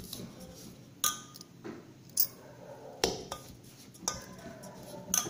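Metal spoon stirring and scraping in a metal bowl as curd is mixed into dry semolina and rice flour, with about five sharp clinks of spoon on bowl, roughly one a second.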